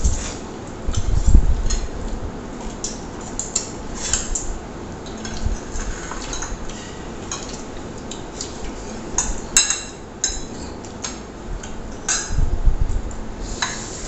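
Metal spoons and forks clinking and scraping against plates in irregular short clicks, with eating noises. There are a couple of dull low thuds, about a second in and again near the end.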